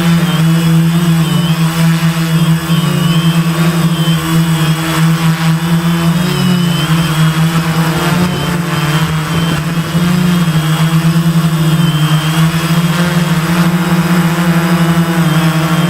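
Gaui 500X quadcopter's four electric motors and propellers buzzing in flight, the pitch wavering up and down as the throttle changes.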